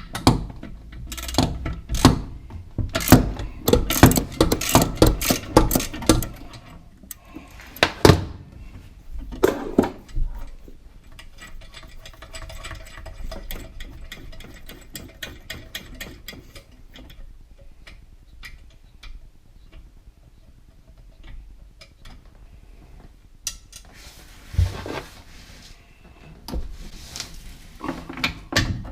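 Ratchet wrench with a 10mm long-reach socket undoing the nuts under a monoblock tap: a run of fast, even ratchet clicks in the middle, with knocks and clatter of the tool against the fittings before and after.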